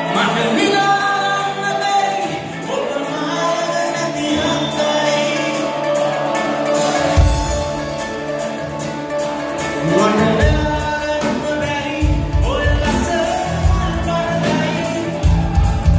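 Live band performing a Sinhala pop song: a male singer over guitars and drums. Strong low bass notes come in about seven seconds in and return from about twelve seconds on.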